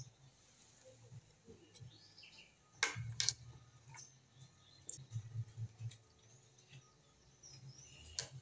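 A metal ladle clinks against a glass serving bowl as meat stew is spooned onto a plate of pasta, two clinks close together about three seconds in and another near the end, with faint bird chirps in the background.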